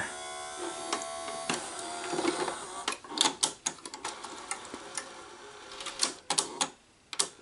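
Betamax VCR's front-loading mechanism taking in a cassette: a steady motor whine for about the first three seconds, then a run of irregular mechanical clicks and clunks as the tape is loaded. The owner says a belt in this machine is slipping, which gave cassettes trouble going in.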